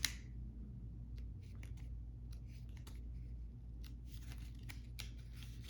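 Tarot cards being handled: faint scattered clicks and brief rustles as cards slide over one another, over a steady low hum.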